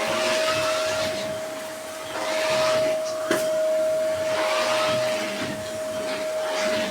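Vacuum cleaner running with a steady whine, its rush of air swelling and fading as the nozzle is pushed back and forth over the floor. One sharp click about a third of the way through.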